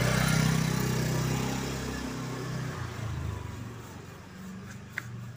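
Motorcycle engine passing close by and fading as it moves off, its sound dying away over about four seconds. A brief click near the end.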